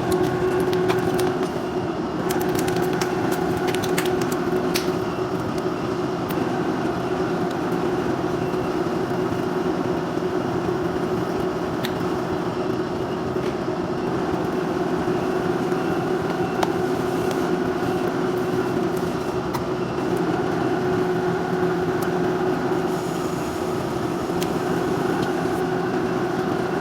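Silicone mixing machinery running with a steady hum, overlaid by sharp little pops: air bubbles bursting in the silicone. The pops come thick in the first few seconds and only now and then after that.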